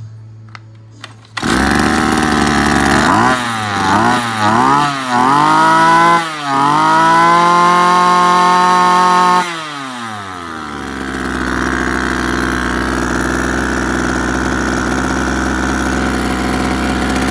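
Kawasaki TD24 brush cutter's small two-stroke engine catching about a second in, blipped up and down several times, then held at high speed for a few seconds. It then drops back and idles steadily.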